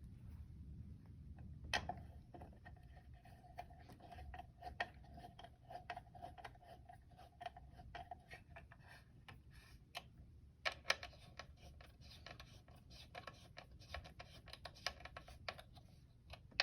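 Faint clicking and light tapping of small screws, a screwdriver and plastic parts as an e-bike's power-button housing is screwed on, with a faint steady whine from about two seconds in to the middle.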